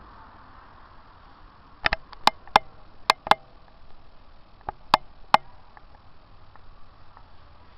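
A run of sharp clicks: six in quick, uneven succession about two seconds in, then three more a little after the middle.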